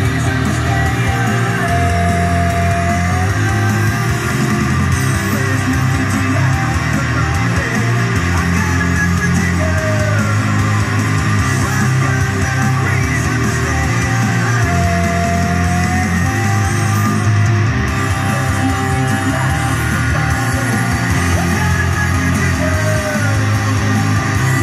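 Loud heavy rock music with distorted guitar, filling the whole stretch.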